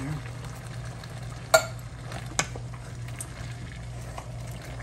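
Spoon stirring canned diced tomatoes into a pot of meatballs and sauce, with wet scraping and light knocks against the pot. About a second and a half in comes a sharp metal clink against the pot, the loudest sound, and a smaller one a second later, over a steady low hum.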